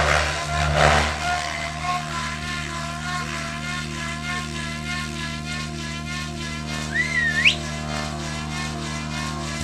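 Radio-controlled 3D helicopter hovering low over the grass: a steady whine from the rotors and motor whose pitch wavers slightly as it manoeuvres. A short rising whistle sounds about seven seconds in.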